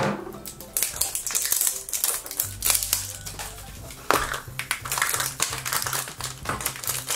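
Hard plastic toy capsule being twisted and pulled open by hand with a run of sharp clicks and knocks, then a foil blind bag crinkling as it is handled.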